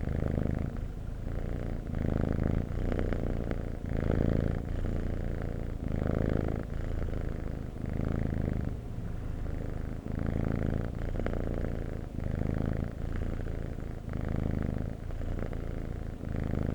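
Domestic cat purring close up, a steady low rumble that swells and eases about once a second as the cat breathes in and out.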